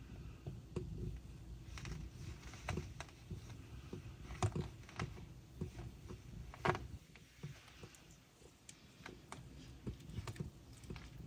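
Newborn kittens suckling and squirming at their mother cat: faint, irregular wet clicking and smacking, with two sharper clicks about four and a half and almost seven seconds in.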